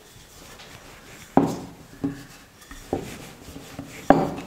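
Wooden rolling pin rolling dough out thin on a round wooden board, knocking against the board four times at about one-second intervals, the last knock the loudest.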